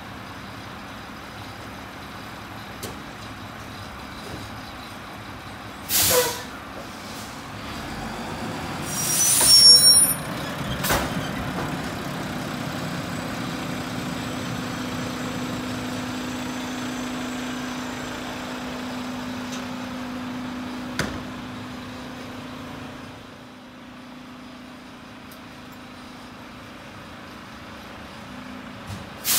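Mack LR garbage truck running, with sharp air-brake hisses, the loudest about six and ten seconds in and shorter ones later. A steady drone rises from about eleven seconds in and fades out around twenty-three seconds.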